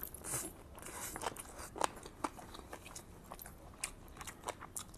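Faint close-up chewing and biting of spiced chicken, a run of irregular small crunches and wet clicks, the sharpest a little under two seconds in.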